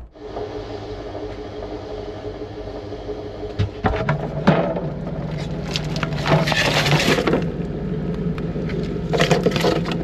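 Groceries and their packaging being handled and packed into a portable fridge: crinkling plastic and light knocks in several spells, over a steady low hum.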